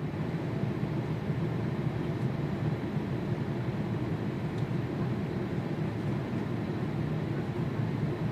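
Steady low rumble of a jet engine running at a distance.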